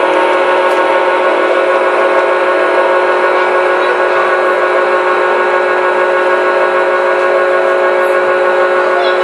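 O-scale model freight train rolling past, a steady mix of several held tones over an even rushing noise.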